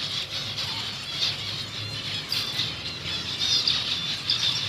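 A colony of small aviary finches calling together: a continuous chatter of many short, high, overlapping chirps.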